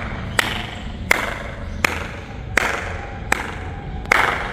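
Hand claps by one person, six of them about three-quarters of a second apart. Each clap is followed by a long echo ringing back from the stone dome overhead.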